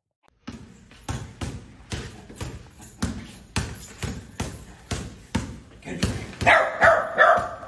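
Dog barking over and over, about two barks a second, with a louder, longer bark or yowl near the end.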